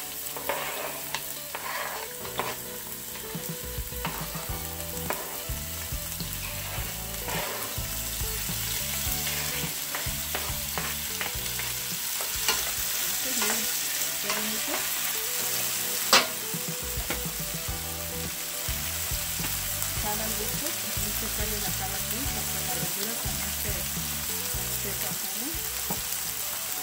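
Diced onion, bell pepper, jalapeño and tomato sizzling in hot olive oil in a nonstick pan. A wooden spoon scrapes the vegetables in off a plastic cutting board, then stirs, knocking and scraping against the pan. One sharp knock about sixteen seconds in is the loudest sound.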